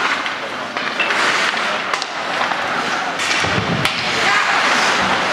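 Ice hockey play: skate blades scraping and rasping on the ice, with a few sharp clacks of sticks and puck, and a dull thump against the boards about three and a half seconds in.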